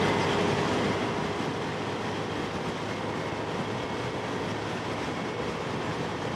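Very strong wind buffeting the microphone on a moving motorcycle: a steady rush of noise with a faint steady hum beneath it.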